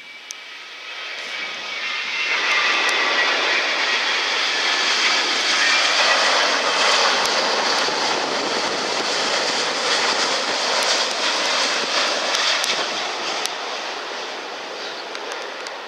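Boeing 787-10 airliner's Rolls-Royce Trent 1000 jet engines at approach power as it passes low on final approach, gear down: a whine that sinks slightly in pitch while the noise builds over the first two seconds, peaks about six seconds in, then slowly fades.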